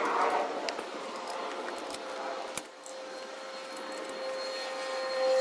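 A few light metallic clicks of a hex key and metal parts at a roof-rack crossbar mount, with rustling of hands. From about halfway a steady humming tone comes in and grows louder toward the end.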